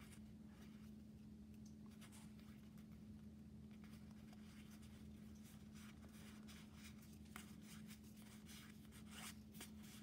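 Near silence: faint rubbing and light ticks of trading cards being slid through the hands one after another, over a low steady hum.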